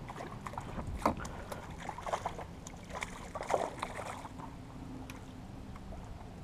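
A hooked fish thrashing and splashing at the surface beside a small boat while a landing net is dipped into the water under it: a handful of sharp splashes in the first four seconds, then calmer water.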